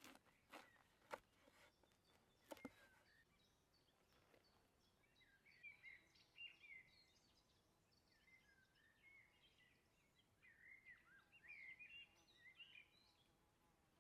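Faint wild birdsong: many quick chirping phrases, starting about five seconds in and fading out near the end. A few sharp clicks come before it, in the first three seconds.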